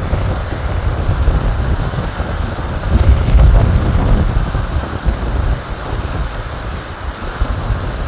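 Strong wind buffeting the microphone in gusts, loudest about three seconds in, over the steady rush of a small waterfall cascading over rocks.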